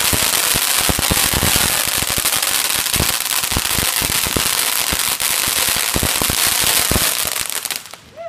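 Ground fountain firework going off: a loud, dense hissing spray full of rapid crackling pops, which dies down suddenly near the end.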